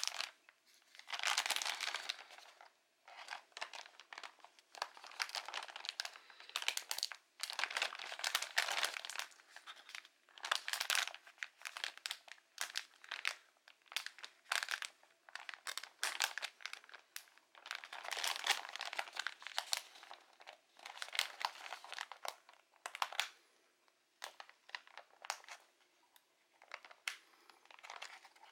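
Clear plastic packaging bag crinkling and rustling in irregular bursts with sharp crackles, as hands handle it and pick at the plastic tag fastener pinning it to a cardboard hang tag.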